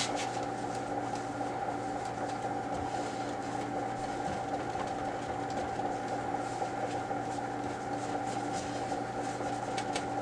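Steady machine hum with several fixed tones, under faint soft rubbing strokes of a lint-free rag wiping scanner glass.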